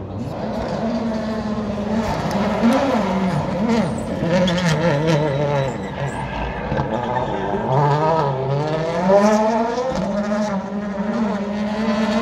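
World Rally Car turbocharged four-cylinder engines revving hard, the pitch climbing and dropping again and again through gear changes and throttle lifts as the cars slide around a loose, dusty loop, with a few sharp cracks.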